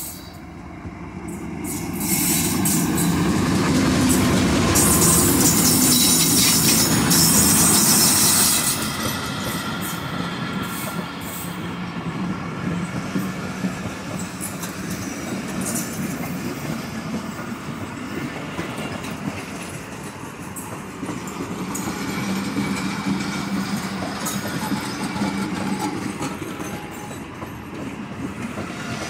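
Diesel-electric locomotive passing slowly at close range, loudest over the first eight seconds or so. Its passenger coaches then roll by at low speed, with steady rumbling and scattered clicks of wheels over rail joints.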